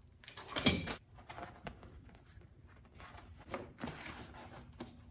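Irregular rustling and scuffing handling noises of a dirt bike seat cover being worked onto the seat, with a louder scrape about a second in.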